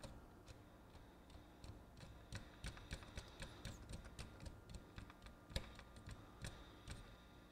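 Faint, irregular clicking and ticking of small plastic parts as the reel table of a Sanyo VCR 4400 Betamax deck is handled and turned by hand, with the sharpest click a little past halfway.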